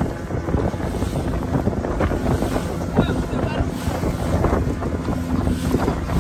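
Wind rushing over the microphone and water splashing against the hull of a small boat moving across choppy sea, with a low steady hum underneath.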